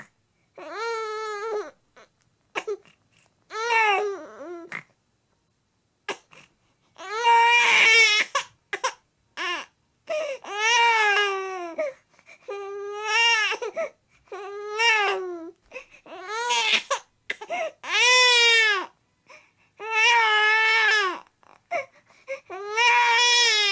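Baby whining and fussing: a string of short, high-pitched crying wails, each about a second long and arching up and down in pitch, with brief pauses between them.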